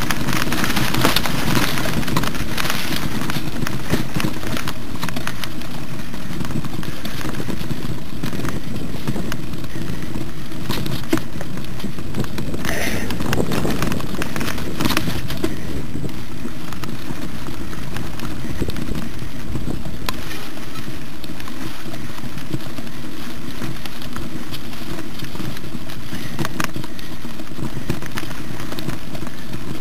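Steady rushing, crackling noise of a mountain bike riding a rough dirt singletrack, with scattered knocks and rattles from the bumps in the trail.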